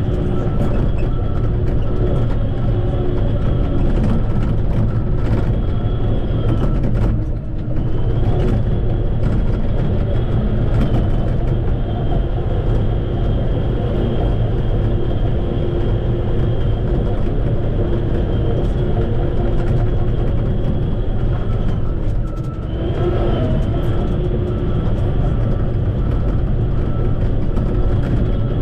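Shantui bulldozer's diesel engine running steadily under work, with a low heavy rumble and a steady high-pitched whine over it. Twice, about 7 and 22 seconds in, the sound dips briefly and then picks up again.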